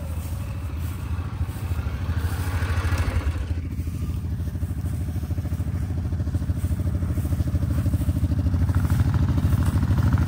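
Off-road vehicle engine running steadily with an even, rapid firing pulse, getting somewhat louder near the end.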